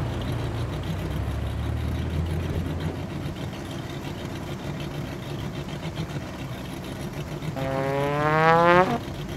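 Cartoon tractor engine running low and steady for the first few seconds, over a steady hiss. Near the end a pitched sound effect rises in pitch for about a second and a half, the loudest sound here, then cuts off suddenly.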